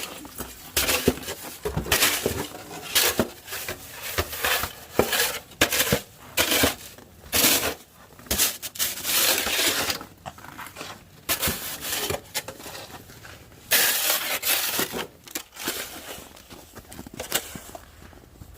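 Snow shovel scraping and scooping deep snow, in short crunching strokes about one a second.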